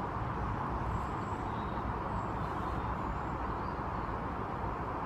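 Steady outdoor background rumble and hiss, even in level throughout, with a few faint high chirps between one and three seconds in.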